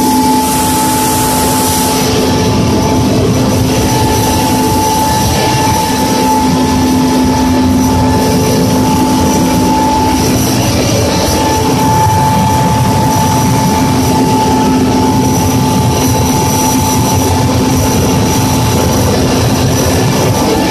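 Mi-24 Hind helicopter heard from inside its cabin: its twin turboshaft engines and rotor running, a loud, steady rush with several steady whines layered over it.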